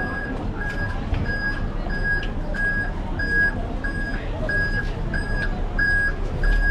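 A vehicle's reversing beeper sounding a steady high beep about three times every two seconds, over a low rumble and street noise.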